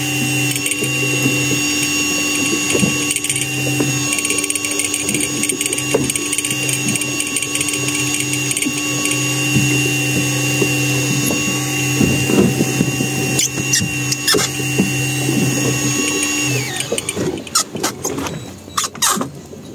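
Electric fishing reel's motor whining steadily as it winds line in under load, hauling a fish up from the bottom. The whine drops in pitch and stops about three-quarters of the way through, followed by a few clicks and knocks of handling.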